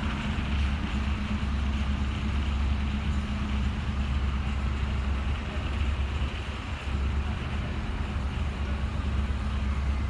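Street traffic noise: a steady low engine rumble with a constant hum, like a vehicle idling nearby.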